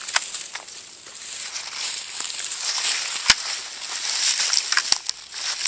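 Irregular rustling and crunching, with two sharp clicks in the second half.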